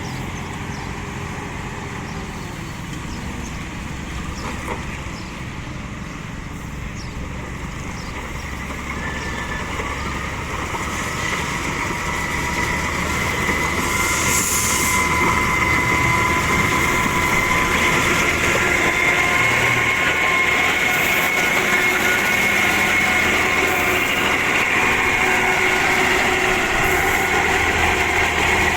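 Heavy construction machinery working, its engine running steadily. A steady high whine joins about ten seconds in, and the whole sound grows louder and then stays loud.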